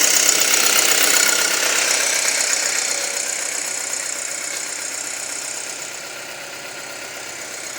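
Audi A4 2.0T turbocharged four-cylinder engine idling with a ticking noise and a steady hiss, gradually growing quieter. The owner links the ticking to heavy intake suction at the oil filler and a rough-running engine, suspecting a pressure leak.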